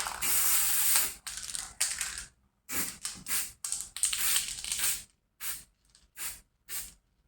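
Aerosol spray-paint can hissing: one spray of about a second, then a string of short bursts that get fewer and shorter toward the end.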